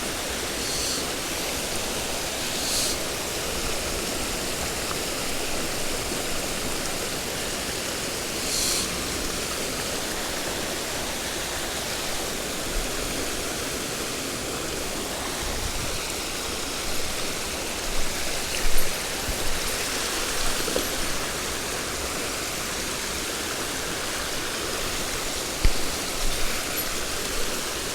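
Mountain stream water rushing steadily over rocks, with a few brief low knocks about two-thirds of the way in and again near the end.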